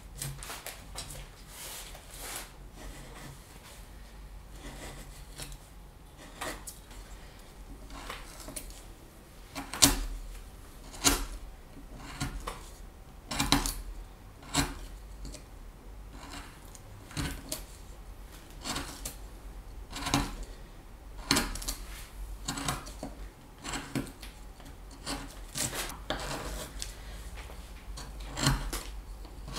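Hand carving tool cutting and shaving wood: a long series of short, irregular slicing and scraping strokes about a second apart, a few of them louder.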